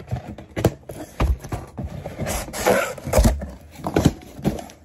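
A cardboard box handled and turned over close to the microphone: irregular knocks and thumps, with cardboard scraping and rustling in between. The loudest thump comes a little after three seconds in.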